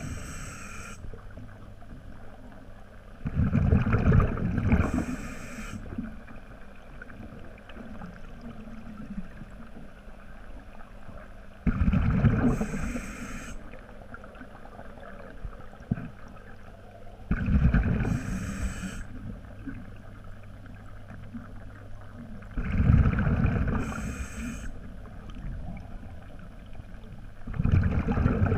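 Scuba diver breathing through a regulator underwater: a loud rush and bubbling of breath about every five to six seconds, with a faint steady low hum between breaths.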